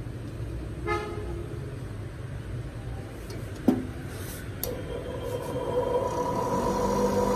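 Hitachi NTG-150W bench grinder switched on: two sharp clicks at the switch a little past halfway, then its motor and two stones spin up with a steady hum that grows louder toward the end. It runs smoothly.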